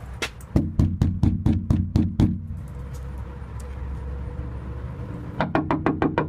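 Knuckles rapping on a glass door to be let in: a quick run of about nine knocks at roughly four a second, then a pause, then another run of six or seven near the end.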